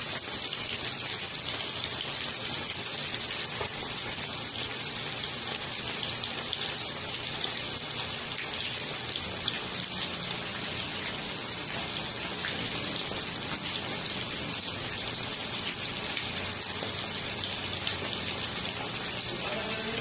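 Coated chicken pieces shallow-frying in hot oil in a pan: a steady sizzle with dense crackling.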